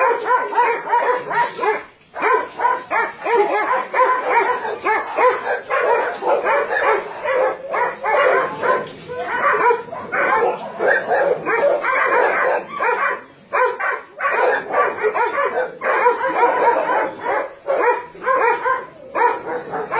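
Many dogs barking and yipping at once in a continuous, overlapping din, with only brief lulls.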